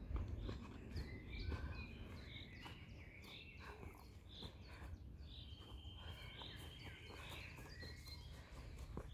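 Faint birdsong: many short chirps and warbles throughout, over a low, steady background rumble.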